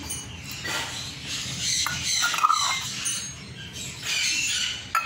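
A utensil scraping and stirring through a thick mashed eggplant and tomato mixture in a steel pot, in uneven strokes.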